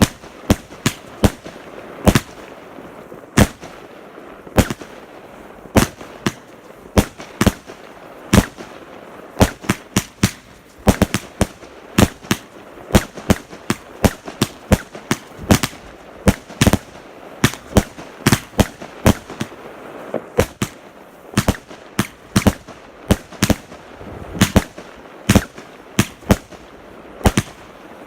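Fireworks going off: a steady run of sharp bangs and crackles, several a second and irregular, some louder than others.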